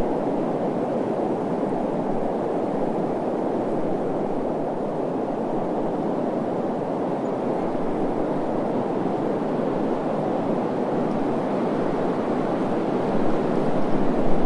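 Desert wind: a steady low rushing noise with no distinct events, swelling slightly near the end.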